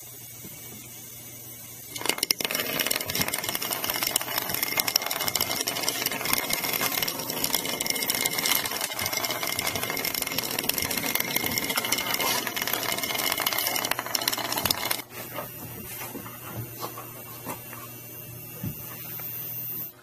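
Small motor of a toy mouse whirring with rapid clicking as it runs across the floor. It starts about two seconds in and drops away about fifteen seconds in, leaving scattered faint clicks.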